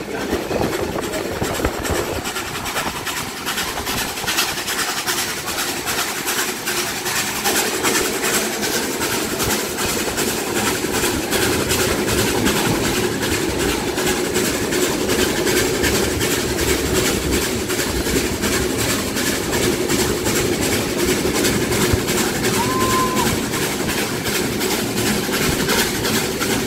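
Two steam trains running side by side, heard from aboard one of them: a steady rumble of wheels on rail with a fast, even beat throughout, growing a little louder after about eight seconds. A brief high tone sounds near the end.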